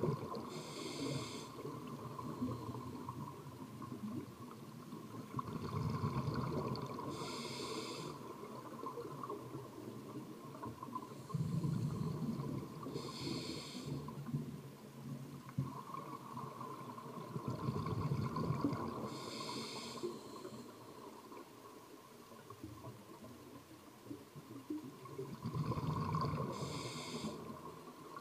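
Scuba diver breathing through a regulator underwater: a slow cycle about every six seconds of exhaled bubbles rumbling out, then a short hiss of the demand valve on the inhale.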